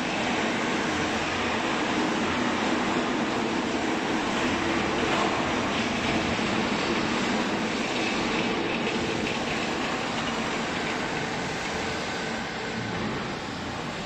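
Bagging baler machinery running: a steady, even mechanical noise with a low hum underneath, easing slightly near the end.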